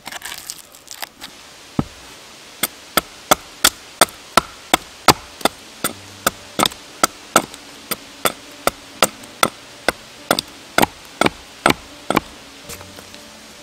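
Hatchet chopping into a standing log: a run of sharp, evenly spaced blows, about three a second, starting a couple of seconds in and stopping near the end.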